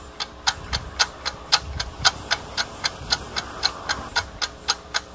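Clock ticking steadily, about four ticks a second, as a thinking-time countdown.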